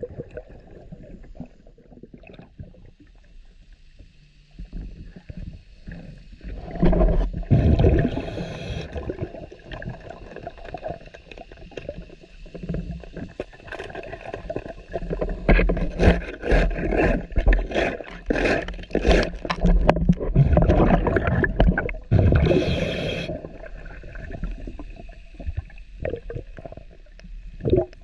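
A scuba diver breathing through a regulator underwater, with bursts of exhaled bubbles gurgling past, two of them loud. A dense run of clicks and knocks comes in the middle.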